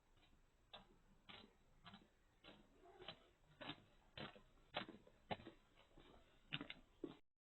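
Faint, evenly spaced taps, about two a second, growing louder over several seconds, then cut off abruptly.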